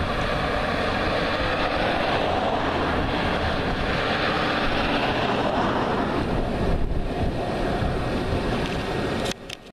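Strong wind blowing hard over the microphone: a loud, steady rush of noise that drops out briefly near the end.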